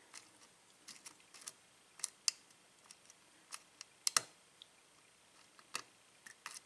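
Lock pick clicking and scraping against the pin stacks inside an Ilco-Corbin 5-pin lock cylinder under tension, in scattered small metallic clicks at uneven intervals, with a double click about four seconds in. This is single-pin picking, the pick working from the back of the lock to set the pins.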